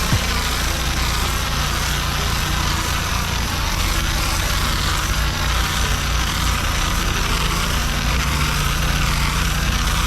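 Gas-engine pressure washer running steadily, with the constant hiss of high-pressure water spraying on a paver driveway.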